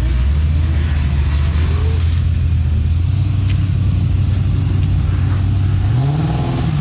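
Car engine running hard at high revs, holding a steady note, then revving up with a rising pitch near the end.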